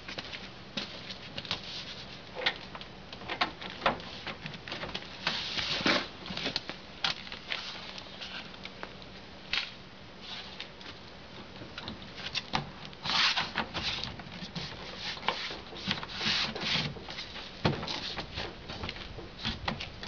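Plastic door trim panel of an Isuzu pickup being handled and fitted back onto the door: irregular clicks and knocks of plastic against the metal door, with a few short scraping, rubbing stretches.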